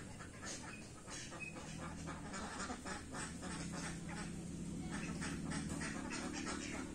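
Ducks quacking in quick, irregular short calls, over a low steady hum.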